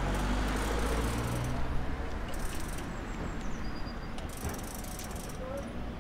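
A tram running past: a low rumble with a steady hum, loudest in the first two seconds and then fading, with rattling and a few short hissing bursts.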